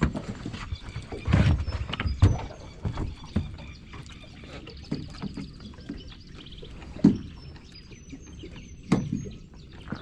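Irregular knocks and thumps on a small boat's hull, with water noise, as the boat is moved slowly through shallow water. A few thin high bird chirps.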